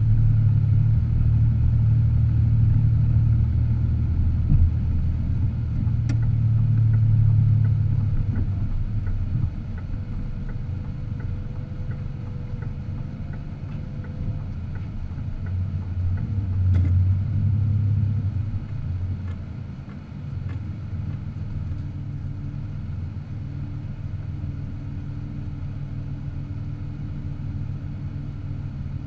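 A car's steady low rumble of engine and road noise while driving. It is louder for the first part, then eases about two-thirds of the way through and settles to a quieter, steadier rumble.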